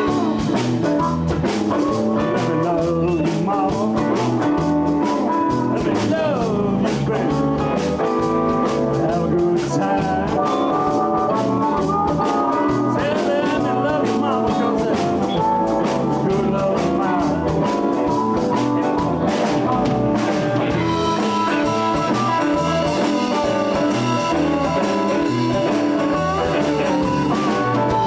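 Live blues band playing an instrumental passage: electric guitars over bass and a drum kit, with a steady beat and bent lead notes.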